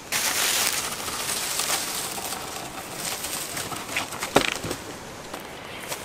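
Dry branches and leaf litter rustling and crackling as firewood is carried, with a loud burst at the start and a sharp snap of a stick about four and a half seconds in.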